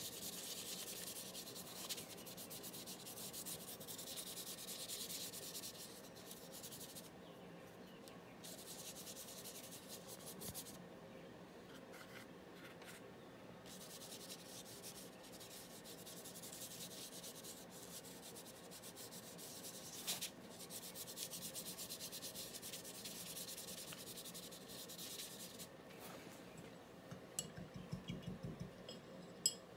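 A paintbrush scrubbing paint onto a sheet of paper in repeated back-and-forth strokes, a soft scratchy rubbing that comes in runs with short pauses between them.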